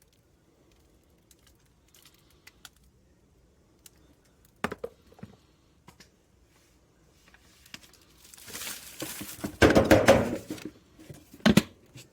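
Handling noises: scattered light clicks and a couple of knocks, then a few seconds of loud rustling and rattling near the end, followed by one sharp knock.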